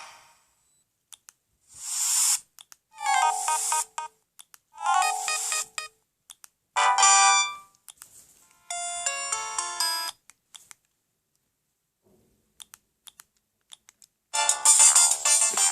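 Siemens SL55 mobile phone playing its built-in ringtones: five short snippets of about a second each, one after another, with faint clicks between them, then after a short quiet gap a longer, fuller ringtone starting near the end.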